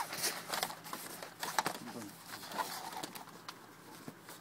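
Clicks and rustles of the Smart Fortwo cabrio's soft-top rear section and its plastic rear window being handled, with a pigeon cooing behind them.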